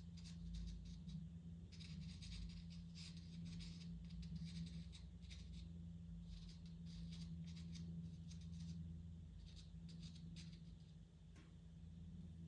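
Pastel pencil scratching lightly on sanded pastel paper in runs of quick short strokes with brief pauses between them, over a faint low steady hum.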